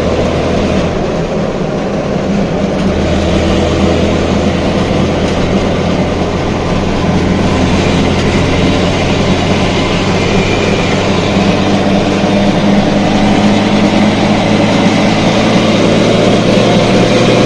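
Datsun 240Z's inline-six running under way, heard from inside a cabin that has no sound deadening, with engine drone and road noise growing steadily louder.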